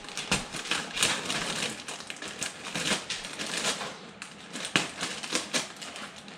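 Plastic cornflakes bag crinkling and rustling in an irregular run of crackles as it is handled and pulled up, partly out of its box.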